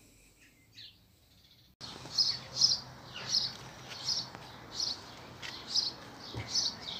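A bird chirping over and over: short, high chirps about every half second to second, starting about two seconds in after a near-silent start, over a faint steady background hum.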